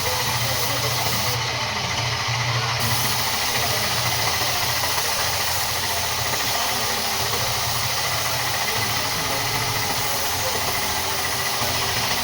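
A steady machine hum with an even hiss over it, running without change.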